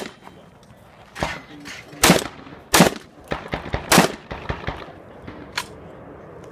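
Shotgun fired in a quick string, about five loud shots over four seconds, with lighter sharp clicks and clanks between the later shots.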